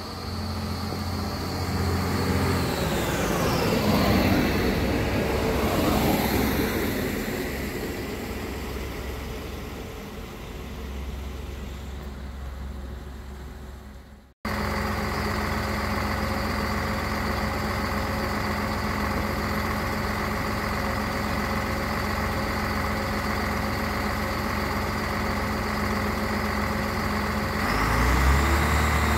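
An X 73500 diesel railcar passes close by, its engine and wheels swelling with a falling pitch as it goes past, then fading away. After an abrupt cut, an X 73500 diesel railcar idles at a standstill with a steady engine hum, and the engine gets louder near the end.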